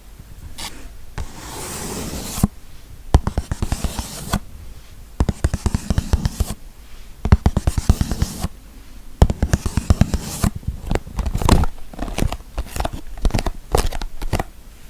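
Fingernails or fingers scratching and tapping on objects as ASMR triggers: bursts of scratching of one to two seconds alternate with quick runs of tapping clicks.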